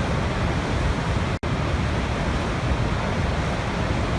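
Niagara Falls: a massive volume of water plunging down, heard as a steady, deep rushing noise. A momentary dropout in the sound comes about a second and a half in.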